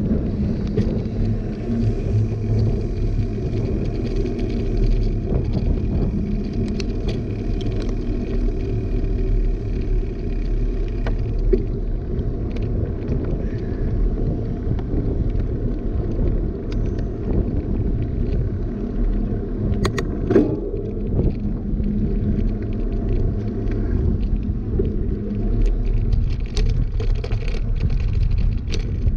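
Steady rumble of a knobby mountain-bike tyre rolling on an asphalt path, with scattered small clicks and rattles from the bike, a few sharper ones about two-thirds of the way through.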